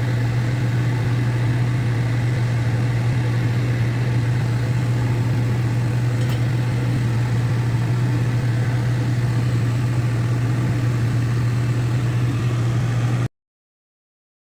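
A steady low mechanical hum with an even noise underneath, unchanging throughout, that cuts off suddenly near the end.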